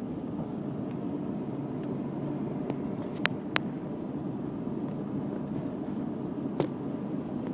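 Steady road and engine noise inside a moving vehicle's cabin, with three sharp clicks: two close together about three seconds in and one more near the end.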